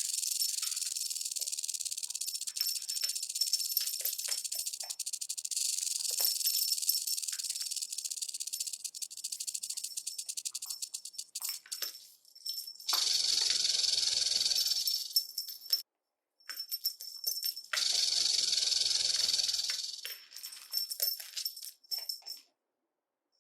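Snake sound effects: a dry, fast rattlesnake-style rattle for about the first twelve seconds, then two long hisses with a brief silence between them, and more rattling near the end.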